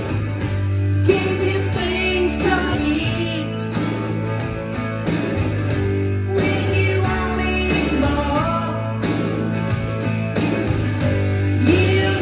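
Rock song with singing over guitar and bass, playing from a vinyl record on a turntable.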